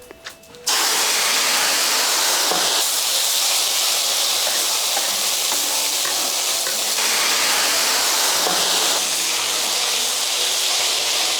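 Pork liver and kidney dropped into a wok of hot rapeseed oil, setting off loud, steady sizzling a little under a second in as the stir-fry begins over high heat.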